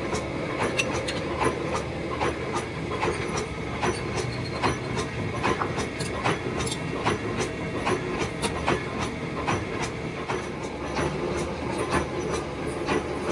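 Old gear-cutting machine running, a steady mechanical hum with a string of sharp metallic clicks and knocks, roughly one or two a second.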